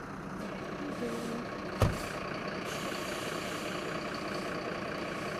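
Steady hum of idling vehicle engines, with one sharp click or knock about two seconds in.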